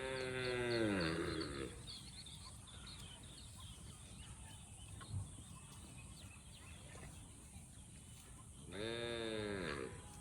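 A farm animal bleating twice: a long call falling in pitch at the start and a shorter one near the end.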